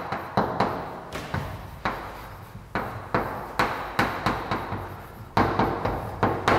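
Chalk tapping and scratching on a blackboard as an equation is written out: a run of sharp, irregular taps, about three a second, each with a short ring in the room.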